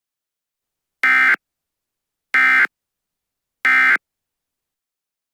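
Emergency Alert System end-of-message signal: three short, identical buzzing bursts of SAME digital data about a second apart, marking the close of the alert message.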